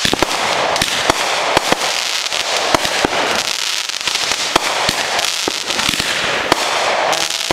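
Fireworks going off in a rapid barrage: a dense, continuous crackle with many sharp bangs coming at irregular intervals, several a second.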